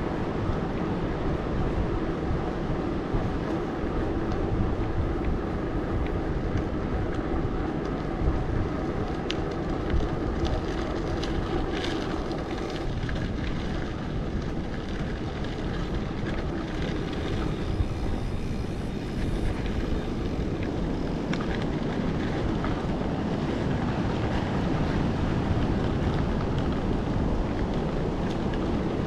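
Steady rushing noise of a mountain bike ride: wind on the action-camera microphone and tyres rolling, with a few faint clicks.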